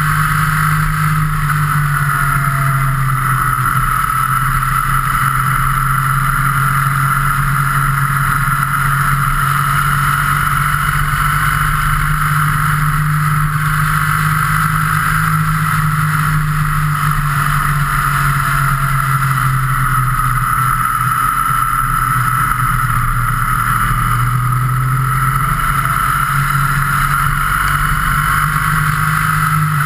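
Motorcycle engine running at a steady cruise, its pitch easing down and back up a little as speed changes, under a constant rush of wind and road noise.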